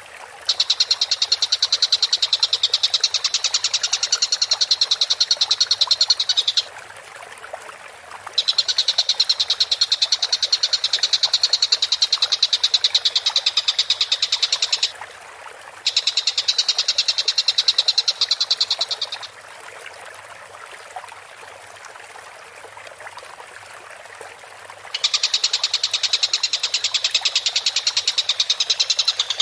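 Tengkek buto kingfisher calling in long, rapid, chattering trills of several seconds each, with short gaps between them. The notes run high and evenly fast, in the bird's vigorous 'gacor' calling.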